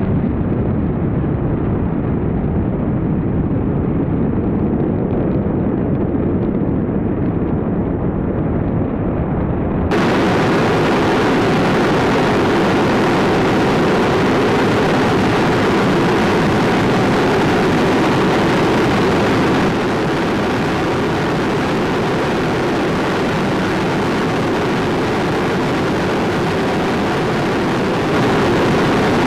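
Five-segment Space Launch System solid rocket booster firing in a static test, a continuous deep rumbling roar of exhaust. About ten seconds in the sound turns brighter and fuller, with more hiss on top.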